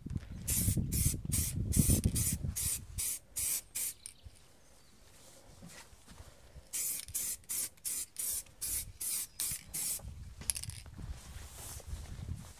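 Aerosol spray paint can (rattle can) laying down a light first colour coat on an alloy wheel in short quick passes: a run of brief hisses, about three a second, then a pause of about three seconds, and another run with one slightly longer hiss near the end.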